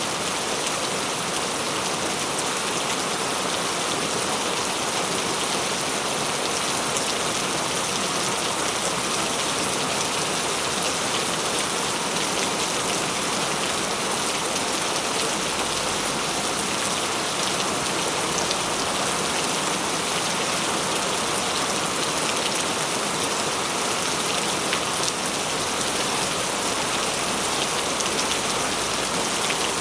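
Heavy rain falling steadily, a dense even hiss of drops hitting a surface with fine individual drop ticks in it.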